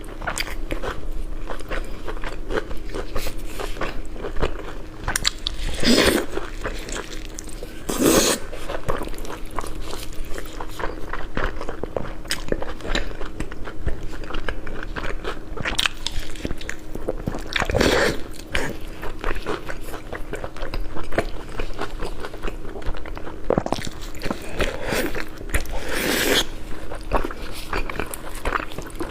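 Close-miked eating of spicy pork: steady wet chewing and biting with many small mouth clicks, and four louder bites spread through the stretch. A faint steady hum sits underneath.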